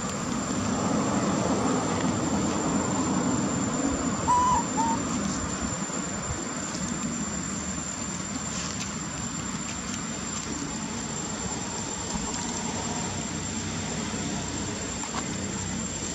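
Outdoor ambience: a steady high-pitched insect drone over a low hiss, with two short calls about four seconds in.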